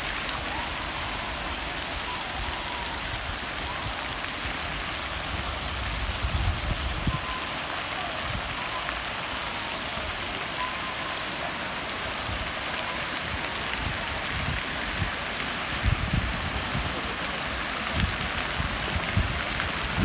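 Public fountain's jets falling into the pool, a steady hiss of splashing water. A few low rumbles of wind on the microphone come about six seconds in and again near the end.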